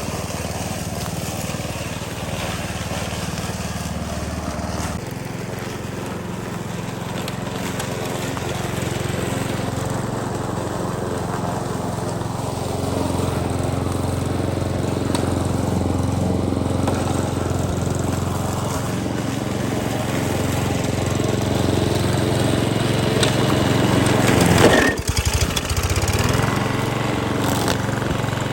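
Ryobi petrol grass cutter running steadily at working speed. About 25 seconds in its engine swells, drops sharply for a moment, then picks back up.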